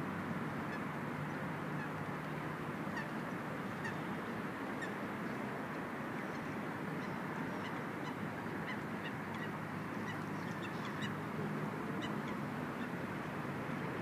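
A large flock of waterbirds floating on the lake, calling: many short, high calls scattered throughout over a steady hiss of wind and water.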